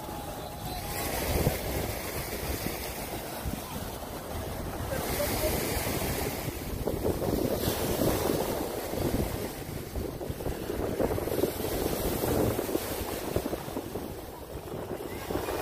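Beach ambience: surf washing on the shore, wind on the microphone and people talking in the background, rising and falling slowly.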